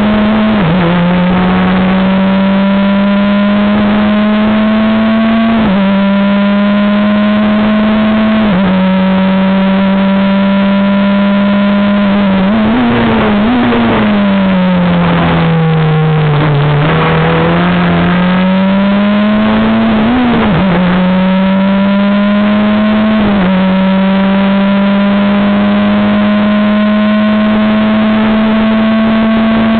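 Super FJ single-seater's Honda 1.5-litre four-cylinder engine under racing load, heard from the cockpit with wind rush. The engine note climbs and drops sharply at upshifts. Near the middle it falls with a few brief blips as the car brakes and downshifts into a corner, then climbs again through the gears.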